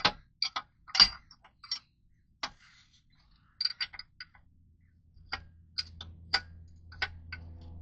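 Sharp metal clicks and clinks from the loosened parts of a knife-sharpening machine being handled and adjusted. About five seconds in, a low steady hum starts and keeps going.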